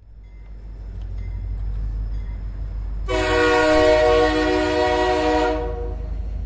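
A passing train rumbling low and steady. Its horn sounds one long chord blast of a few seconds, starting about three seconds in.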